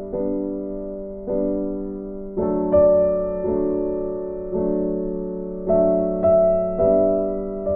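Background music: slow, soft piano chords, a new chord struck about once a second, each ringing and fading away.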